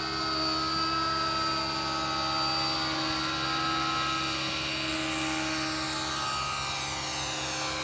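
Radio-controlled scale model Westland Lynx helicopter in flight: a steady whine from its drive and rotors, made of several held tones that slide slightly lower in pitch in the second half.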